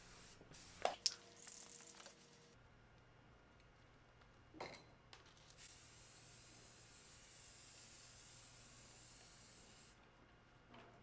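Aerosol spray paint can spraying: a short burst of hiss early on, then a steady high hiss for about four seconds from about five and a half seconds in. A couple of sharp clicks about a second in are the loudest sounds, with a single knock a few seconds later.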